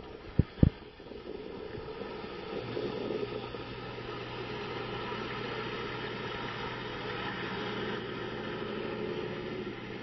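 Steady outdoor background din with a low, even hum that comes in about three seconds in and holds. Two or three sharp knocks sound in the first second.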